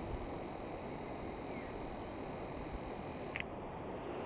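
Outdoor ambience: wind rumbling on the microphone with a steady high whine that cuts off with a short click about three and a half seconds in.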